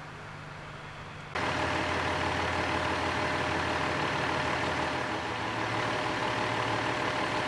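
Quiet low hum, then about a second in the sound cuts abruptly to a fire engine idling, its engine running steadily.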